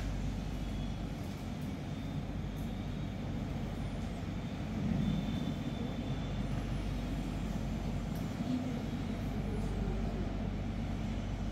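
Steady low room rumble and hum, without speech or music.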